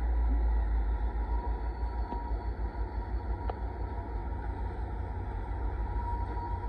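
Steady low rumble of a passing Union Pacific freight train, with a faint high tone near the end.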